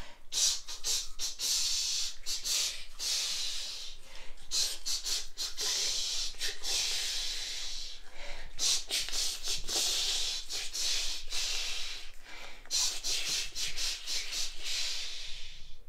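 Manual toothbrush scrubbing teeth close up: quick, rhythmic back-and-forth bristle strokes with a hissy, scratchy sound, broken by brief pauses every few seconds.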